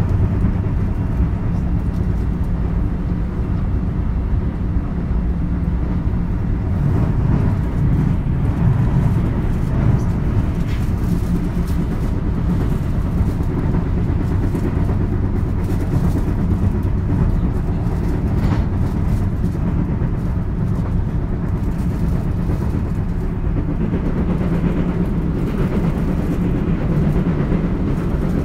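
Running noise of a JR West 223 series electric train heard inside the KuMoHa motor car: a steady, loud rumble of wheels on rail. A wheel on this set has a flat spot, which gives an abnormal flat-wheel sound.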